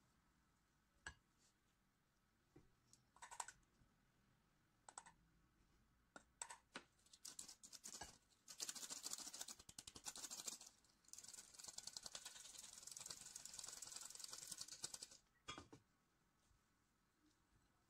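Stainless steel squeeze-handle flour sifter clicking rapidly as it is worked over the bowl, after a few scattered clicks and taps.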